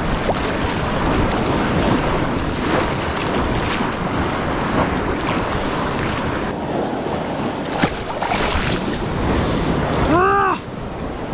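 Choppy sea water churning and splashing close to the microphone as a person wades chest-deep through surf, with wind buffeting the microphone.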